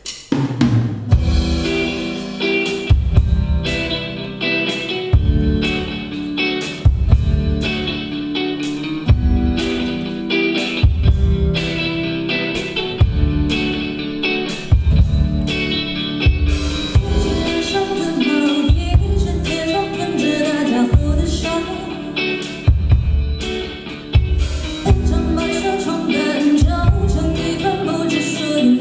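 Rock band music with a drum kit keeping a steady beat of snare and bass drum under sustained instruments, starting abruptly at the opening.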